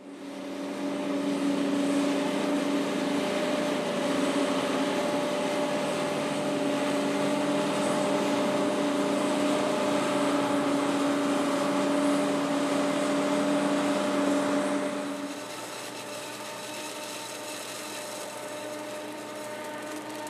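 New Holland self-propelled forage harvester running steadily as it chops maize, with a tractor alongside: a continuous machine drone with fixed hum tones. About fifteen seconds in it turns quieter, with a different set of tones.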